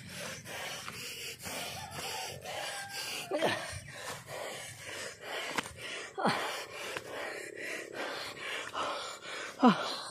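A person panting hard from climbing a steep slope, fast rasping breaths a few times a second, with three short voiced gasps that fall in pitch, the last one near the end.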